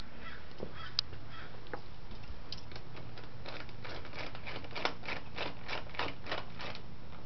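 Ratchet with a 10 mm socket tightening the nylock nut on an intake hose clamp. A few scattered clicks come first, then from about two and a half seconds in a run of quick, even ratcheting clicks, about four a second, that stops shortly before the end.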